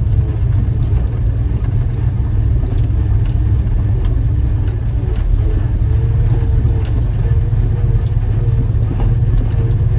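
Old Jeep's engine running slowly in four-wheel drive, crawling over rocks with a steady low rumble, with scattered clicks and rattles from the body and loose items.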